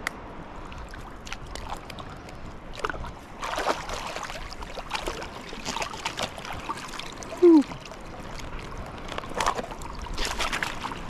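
Water washing and splashing at the shoreline in irregular bursts, with a short falling-pitched sound about halfway through as the loudest moment.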